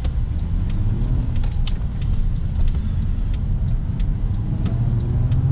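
Mercedes-Benz car heard from inside the cabin while driving: a steady low engine and road rumble, with the engine note rising over the last second or so as it picks up speed.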